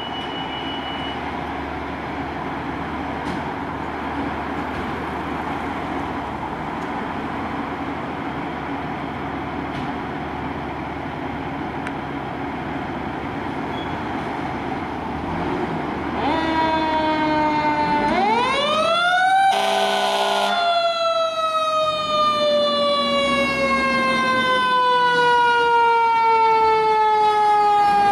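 Fire apparatus diesel engines idling in the station bays, a steady rumble. About two-thirds of the way through, a mechanical fire-truck siren winds up to a peak, a one-second air-horn blast sounds, and the siren then winds slowly down in a long falling wail as the ladder truck pulls out.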